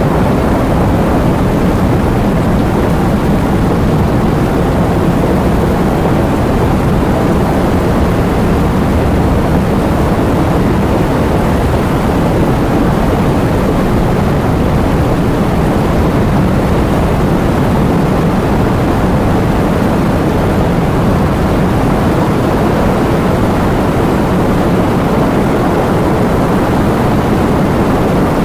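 Heavy rain falling: a steady, unbroken rush of noise, heaviest in the low and middle range, with no single drops or thunder standing out.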